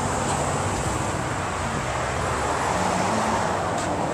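Steady noise of road traffic, with no single event standing out.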